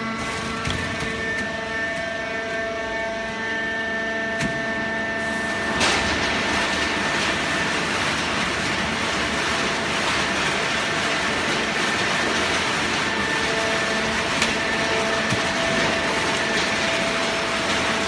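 Automatic horizontal cardboard baler running: a steady machine hum with a few held tones, and a rushing mechanical noise that gets louder about six seconds in and stays up.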